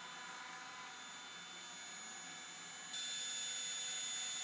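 Spindle of a 5axismaker desktop 5-axis CNC mill running as a small end mill cuts polyurethane (PU650) model board: a steady high whine over a hiss. It gets louder about three seconds in.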